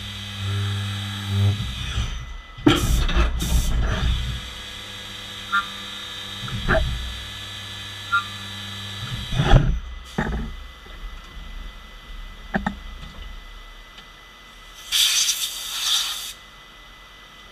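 Fanuc Robodrill CNC mill running its spindle and machining a small plastic part, a steady machine hum broken by several sharp knocks; the steady tone stops about ten seconds in. Near the end comes a hiss of compressed air from a hand-held air blow gun, lasting about a second and a half.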